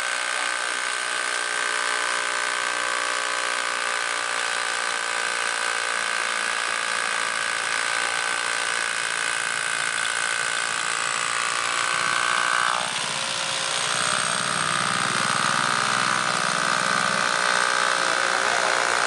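AEG electric drill running steadily under load, its masonry bit boring into a concrete block: a steady motor whine. About 13 seconds in the whine breaks off briefly and a similar power-tool whine starts again.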